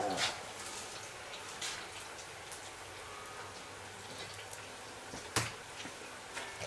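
Pork neck steaks sizzling faintly on a charcoal kettle grill, with a few sharp clicks of a plastic spatula against a pan and the meat, the loudest about five seconds in.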